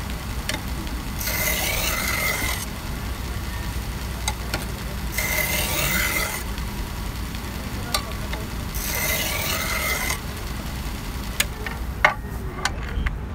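AMK-75 belt sharpener grinding a chef's knife: the blade is drawn across the running belt three times, each pass a hissing grind of about a second with a thin ringing edge, over a steady low hum. A few sharp clicks come near the end.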